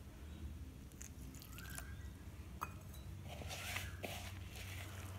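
A hand mixing and kneading wheat flour dough in a plastic bowl: quiet, soft squishing and crumbly rubbing as water is worked into still-lumpy flour, louder from about three seconds in. A faint low hum runs underneath.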